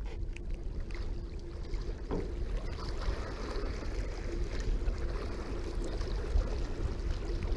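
Small lake waves lapping against the rocks of a pier, with wind rumbling on the microphone and a faint steady hum.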